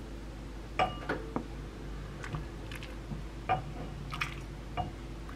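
A ladle scooping tofu stew out of a clay pot and pouring it into a ceramic bowl: a string of light clinks and knocks of the ladle against the pot and the bowl, with the wet splash of broth, over a steady low hum.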